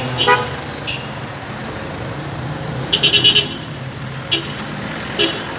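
Street traffic: cars and a motorcycle running past with a steady low rumble. A rapid burst of sharp clicks comes about three seconds in, and two single clicks come near the end.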